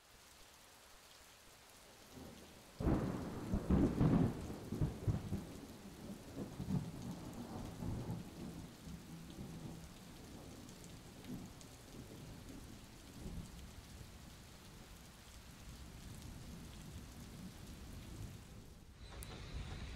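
A thunderclap from a close lightning strike about three seconds in: a sudden sharp crack breaking into a rolling rumble that fades away over several seconds. Steady rain falls under it.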